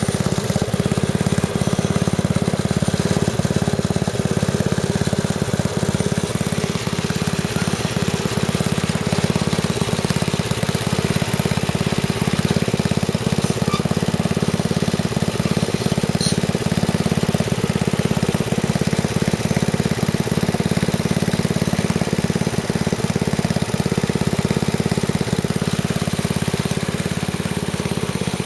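Freshly rebuilt carbureted engine of a wood chipper running steadily at constant speed.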